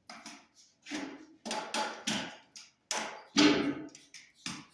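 A run of irregular knocks and clatters of hard objects, about a dozen, the loudest about three and a half seconds in.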